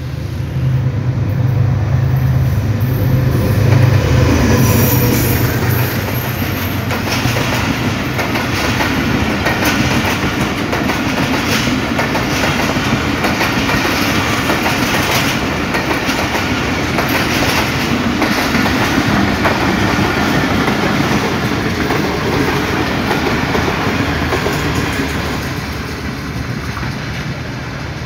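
Diesel locomotive passing close by with a low engine drone, then a long string of passenger coaches running past with an irregular clickety-clack of wheels over the rail joints. The sound eases slightly near the end as the train draws away.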